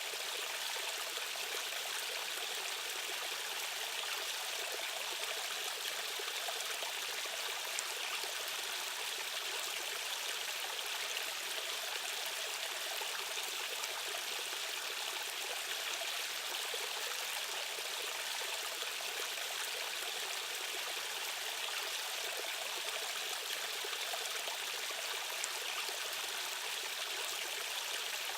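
Rushing stream water flowing steadily, an even splashing rush with little deep rumble.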